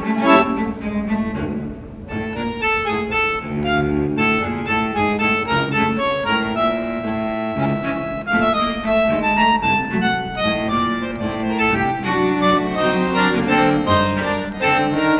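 Instrumental background music: a reedy melody over bowed-string and bass accompaniment.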